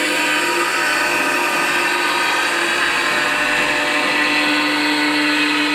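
A power saw running steadily as workers cut, making an even, whining noise with a steady hum under it.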